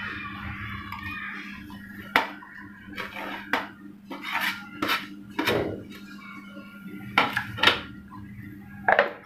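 Kitchen crockery being handled: irregular clinks, knocks and scrapes of a ceramic plate and steel bowls as chopped vegetables are scraped off the plate into a bowl, over a low steady hum.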